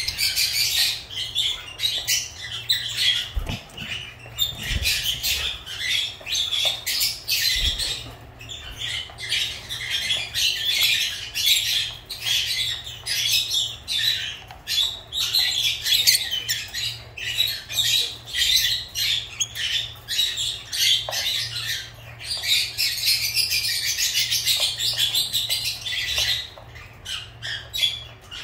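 Lovebirds chattering: a continuous stream of rapid, high-pitched shrill chirps and squawks with no pauses. A few soft low thumps come in the first several seconds.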